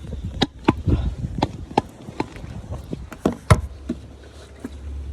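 Irregular sharp clicks and knocks, as of objects such as a plastic oil bottle being handled, with the loudest knock about three and a half seconds in, over a steady low hum.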